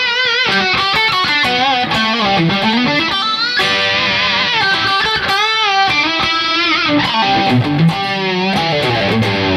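Yamaha Pacifica electric guitar played through a Line 6 Helix: a sustained lead phrase of held notes with vibrato and string bends, with a rack-style detune effect spreading the tone wide.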